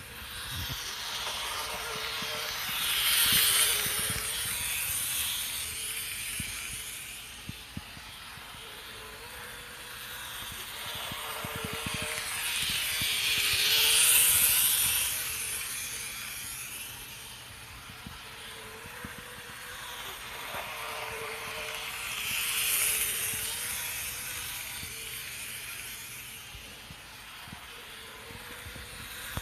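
TOMIX N-gauge 500 series Shinkansen model train running round its track, its small motor car whirring and hissing with an abnormal noise that a first repair has not cured. It grows loud and fades away again about every ten seconds as the train comes past on each lap, with light clicks from the wheels on the rails.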